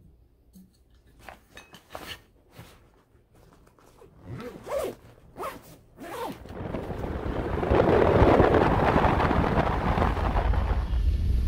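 Osprey backpack's zippers being pulled, with rustling and clicks of the pack being handled, then several short rising zips. Near the end a louder steady rushing noise with a low rumble comes in.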